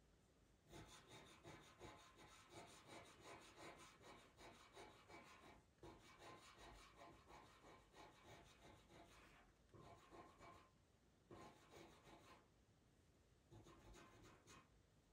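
Faint scratching of a pastel pencil's tip on Pastelmat paper, drawn in quick short strokes to lay in fur. The strokes come in runs broken by brief pauses.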